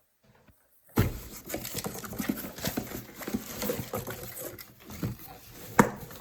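Rummaging and handling noises that start abruptly about a second in: an irregular run of knocks, taps and rustles, with one sharp knock near the end.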